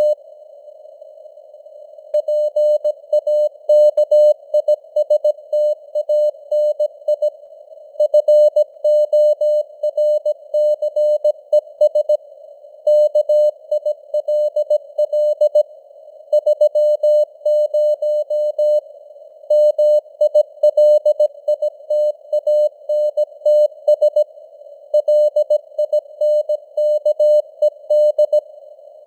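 Morse code at 17 words per minute: a tone of about 600 Hz keyed on and off in dots and dashes, sitting in a narrow band of simulated radio noise, with the signal strength varying (QSB). For about the first two seconds only the noise is heard, then the keying resumes.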